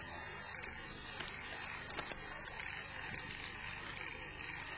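Crickets chirring steadily in a grassy field, with a few faint clicks.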